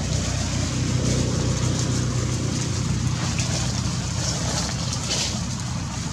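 A motor engine running steadily nearby: an even low hum with a hiss over it.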